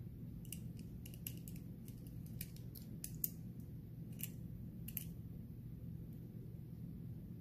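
Small metal clicks and ticks of a Mul-T-Lock dimple lock cylinder's pins and springs being shaken out into a palm. The clicks come in an irregular cluster and stop about five seconds in.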